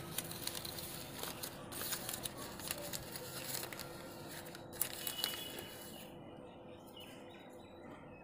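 Crumpled sheets of ruled notebook paper rustling and crinkling as they are unwrapped by hand from around an egg, with scattered crackles. The rustling dies down after about six seconds.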